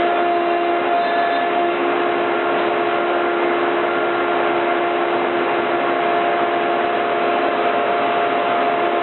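CNC router spindle with a 1/4-inch bit running steadily while cutting MDF: an even whine over a loud rush of cutting noise.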